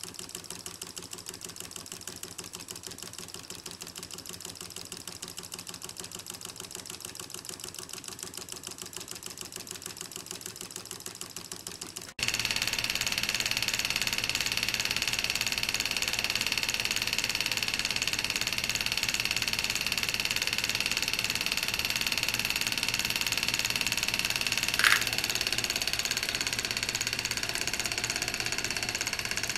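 Model Stirling hot-air engines running: a fast, even mechanical ticking from the pistons, rods and flywheels. About twelve seconds in it gets abruptly louder and gains a steady high whine, and a short rising chirp sounds near the end.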